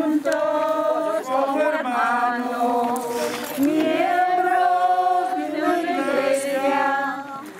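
A group of people singing a Spanish hymn together, slowly, with long held notes and a short pause for breath near the end.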